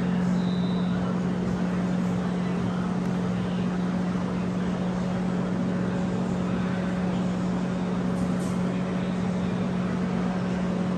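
A steady low hum over a constant rushing noise, unchanging throughout.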